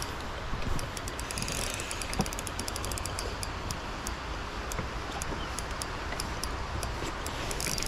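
Fishing reel's ratchet clicking in runs of quick, irregular ticks while a big lake trout is being played on the line, over a steady rushing background.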